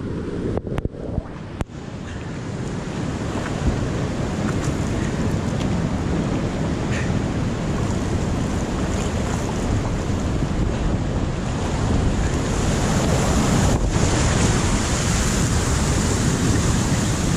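Whitewater rapids rushing and churning right around a kayak, close to the boat-mounted camera's microphone. The sound drops out briefly a few times in the first couple of seconds, then grows louder and holds steady.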